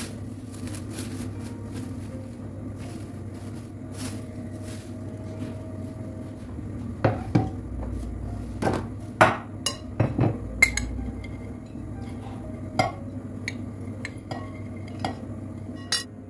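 Kitchen clatter of dishes, pots and utensils: a run of sharp clinks and knocks in the second half, over a steady low hum.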